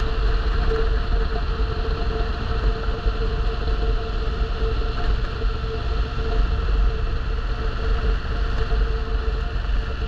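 A vehicle driving at a steady speed: an even engine and road drone at constant pitch over a low, fluctuating rumble.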